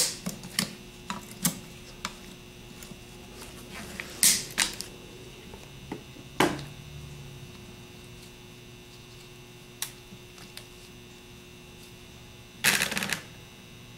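Side cutters snipping through the copper stator leads of a Ford 6G alternator where they meet the rectifier: a series of sharp snaps and clicks of steel jaws and tool handling. A longer scraping noise comes near the end.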